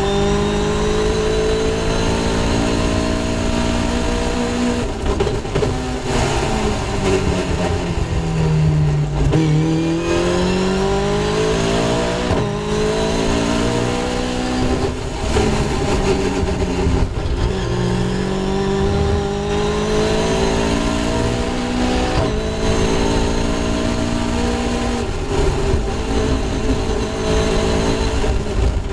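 Caterham Seven's Caterham-tuned Ford Duratec 2.0-litre four-cylinder engine at race pace, heard onboard over wind rush. The note falls under braking near the middle, then climbs again, broken several times by quick sequential gear changes.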